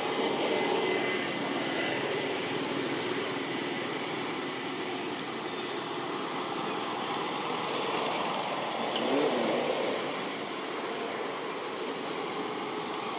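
Steady background engine noise, like a distant motor vehicle or aircraft, with no clear events. It swells briefly about nine seconds in.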